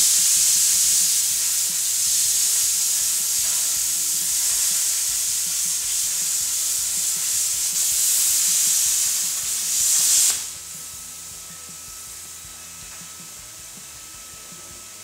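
Miller Spectrum 625 X-TREME plasma cutter arc cutting through quarter-inch steel plate: a loud, steady, high hiss. It cuts off suddenly about ten seconds in, leaving a quieter steady hiss.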